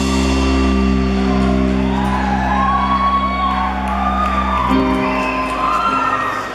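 Live rock band music heard from the audience in an arena: steady held low chords, changing to a new chord a little under five seconds in, with audience whoops and shouts rising over the music.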